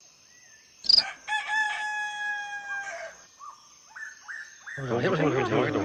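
A rooster crowing: one long held call with a slightly falling pitch, after a sharp click about a second in and followed by a few short rising chirps. A louder voice comes in near the end.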